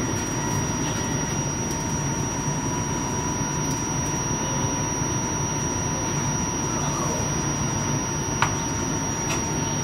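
Cleveland RTA Blue Line Breda light-rail car running along the track: a steady rumble with a thin, steady high whine over it, and two sharp clicks near the end.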